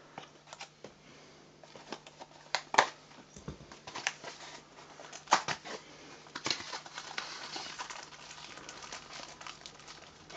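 Wrapping on a small cardboard box of firecrackers crinkling and tearing as it is peeled open by hand, in irregular sharp crackles.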